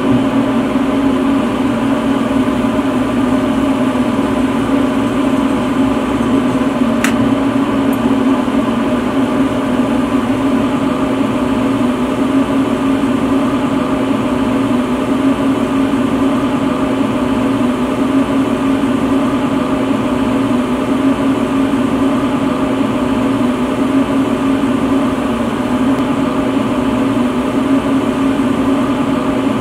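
Lampworking bench torch burning steadily, a constant hum and hiss, with one sharp click about seven seconds in.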